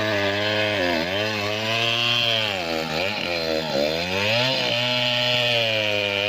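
Stihl two-stroke chainsaw running at high speed, its pitch dipping and recovering several times in the middle as the chain bites into acacia wood under load.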